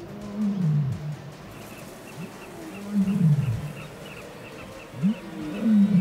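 African lions roaring: three deep, moaning calls that fall in pitch, about two and a half seconds apart, with short rising grunts between them.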